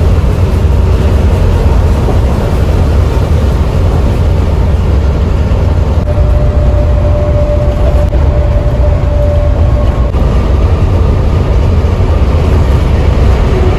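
Steady low engine and road rumble heard inside a bus cab cruising at highway speed, with a faint steady whine for a few seconds midway.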